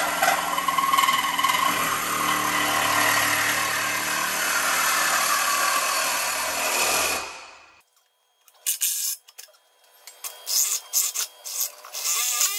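Reciprocating saw cutting steadily for about seven seconds, then stopping suddenly. A few short bursts of cutting follow near the end.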